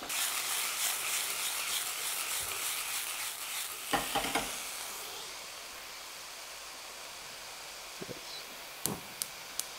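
Turkey breast strips sizzling in a hot nonstick pan, with a few knocks as the pan is handled about four seconds in. The sizzle then settles to a quieter steady hiss, and a few sharp clicks near the end come as the gas burner is turned down.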